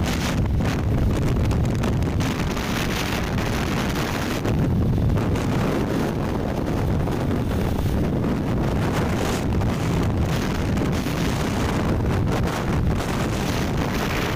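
Wind buffeting the microphone of a moving vehicle, a steady gusty rush over the low rumble of road and engine noise.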